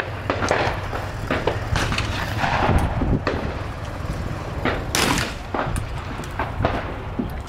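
Gunfire at a shooting range: a dozen or so sharp shots at irregular intervals, none standing far above the rest, over a steady low rumble.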